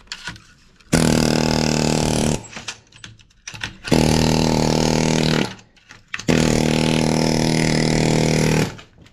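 Pneumatic air hammer with a chisel bit firing in three bursts of one and a half to two and a half seconds each, a steady buzz, as it shears components off a TV circuit board.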